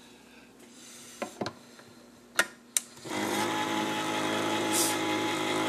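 Electric can opener: a few sharp clicks and knocks as the metal can is set against the cutter and the lever pressed down, then about three seconds in the motor starts with a steady whir, turning the can as it cuts the lid.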